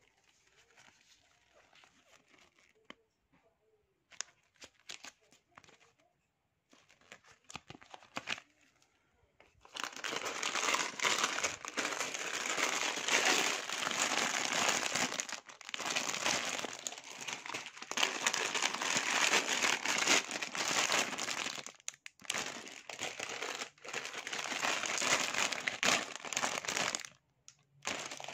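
Clear plastic bags of Lego parts crinkling as they are handled. For the first ten seconds or so there are only faint, scattered crinkles and clicks. From about ten seconds in, loud continuous crinkling with a few short pauses.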